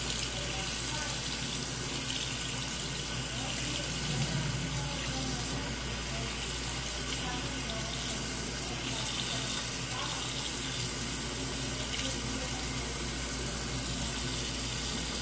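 Bathroom sink faucet running steadily, water pouring into the basin.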